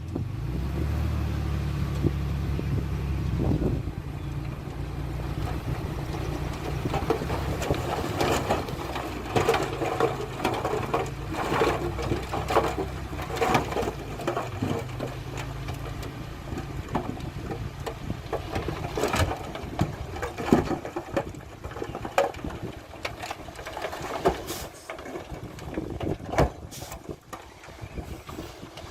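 Heavy diesel earthmoving machinery working: a low engine drone for about the first half, then fading, with repeated metallic clanks and knocks throughout.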